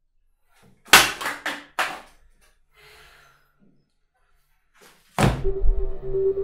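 A quick run of four sharp knocks about a second in. A little after five seconds, a heavy thud as a stack of papers is slammed down on a desk. Low, steady synth music begins right on the thud.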